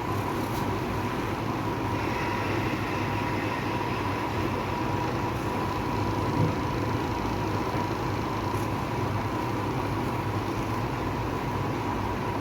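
Percussive massage gun (fascia gun) running steadily against the hamstring muscle, a continuous even motor hum with a thin steady whine, used to release muscle tightness.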